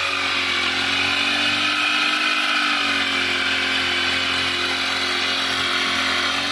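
Small two-stroke engine of a backpack power sprayer running steadily at speed, driving the pump that sends spray mist out of a long lance. The pitch wavers only slightly.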